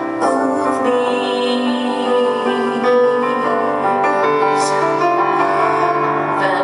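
Live piano and keyboard music with long held chords.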